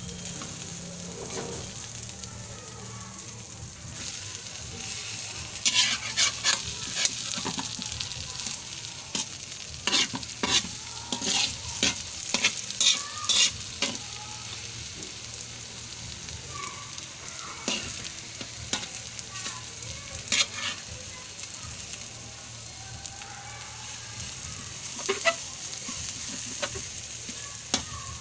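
Eggs with malunggay leaves sizzling in oil in a metal wok, with a metal spatula scraping and clinking against the pan as they are turned. The scraping comes in clusters, busiest from about six to fourteen seconds in, with a few more strokes later.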